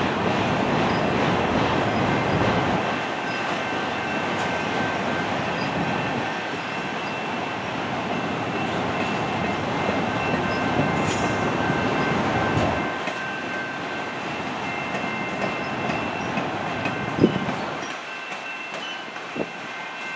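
Autorack cars of a CN freight train rolling past: a steady rumble of steel wheels on rail with a faint high whine over it. The rumble eases about two-thirds of the way through and again near the end, where a couple of sharp clacks stand out.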